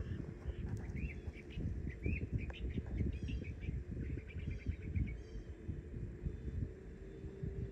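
Birds chirping in short, repeated calls for the first few seconds, over a low rumble of wind on the microphone. A faint steady hum comes in near the end.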